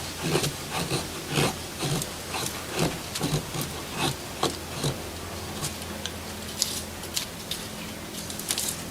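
Small Buck folding knife's blade shaving wood in repeated scraping strokes, about two a second at first and then more sparsely. The blade is biting into the wood unevenly, which the owner puts down to its design or its short length.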